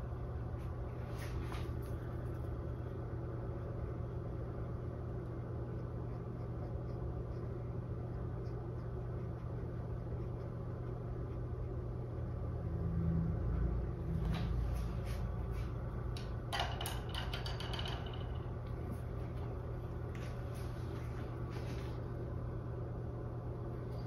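Steady low room hum, with a few faint, short scratchy strokes of a paintbrush on canvas and a brief swell of low rumble about halfway through.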